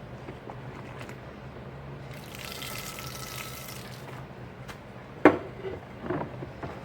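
A sink tap runs briefly, for under two seconds. A few seconds later dishware knocks sharply against the sink, followed by a smaller clatter.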